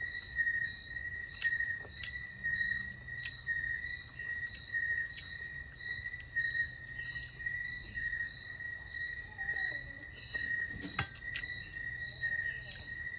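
Insects chirping steadily: one high, even trill pulsing about three times a second, the background sound of a rural home at night. A single sharp click comes near the end.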